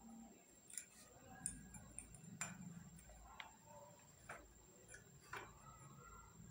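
Faint, irregular small clicks and taps, about half a dozen, from handling an iron yoyo while its string is knotted on.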